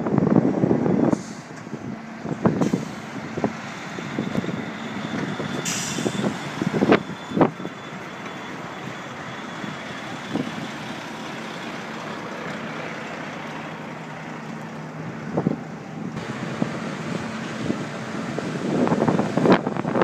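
Articulated tipper lorry's diesel engine running steadily, with a few short hisses and knocks about a third of the way in. Wind buffets the microphone in the first second and again near the end.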